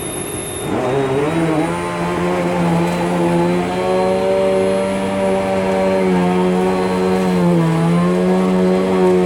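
Bissell PowerLifter upright vacuum cleaner running on a rug, a steady motor hum whose pitch sags briefly about half a second in and again near eight seconds.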